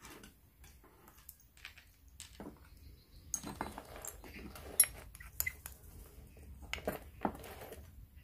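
Small clicks and clinks of long fingernails and a metal spatula against a small jar of dip powder as it is handled. They come sparsely at first, get busier from about three seconds in with one sharp click near the middle, and end in a couple more clicks near the end.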